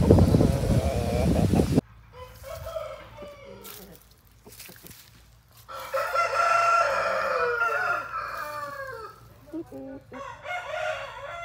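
Aseel gamefowl rooster crowing: one long crow of about three seconds starting near the middle, its pitch falling away at the end, then a shorter call near the end. Before that, a loud rushing noise cuts off abruptly about two seconds in.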